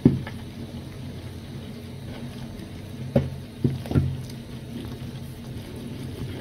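Wooden mingling stick knocking and scraping against an aluminium saucepan while cassava and sorghum flour is stirred into boiling water to make posho: a knock near the start and three more about three to four seconds in, over a steady low hum.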